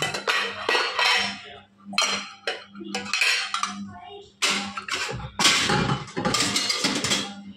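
Stainless steel plates and vessels clanking and clattering irregularly as they are stacked and put away on kitchen shelves.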